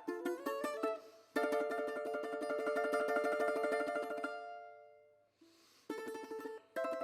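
Background music on a plucked string instrument: single picked notes, then fast-repeated tremolo notes held on a chord that fades away about five seconds in before the picking starts again.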